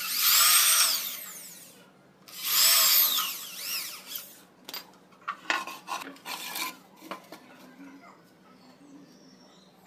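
Corded electric hand drill boring into plywood in two runs of about two seconds each, the motor's whine rising as it spins up and falling as it slows. Several short knocks and clicks follow.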